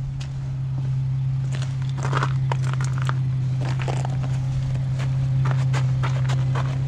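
A car engine idling with a steady low hum. Footsteps crunch on packed snow and ice, in quick uneven steps that start about a second and a half in.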